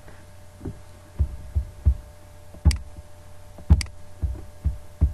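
Computer mouse clicks and low thumps, about ten at irregular intervals, over a faint steady electrical hum.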